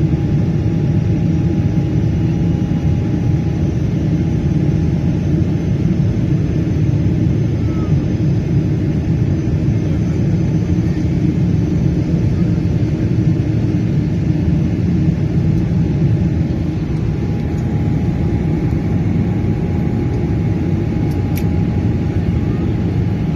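Jet airliner cabin noise heard from a window seat: the steady low rumble of the engines and airflow, with a faint steady whine above it.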